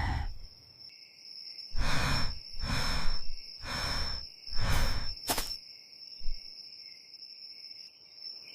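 Steady high chirring of crickets or other insects. Over it come four breathy rushing sounds about a second apart, then a sharp click.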